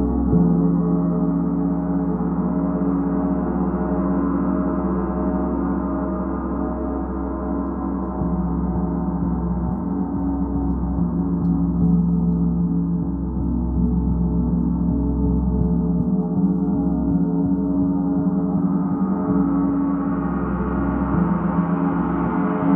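Large suspended gong played continuously with a soft felt mallet in gong-bath style, its strokes merging into one sustained wash of many overlapping low tones. The sound grows brighter near the end.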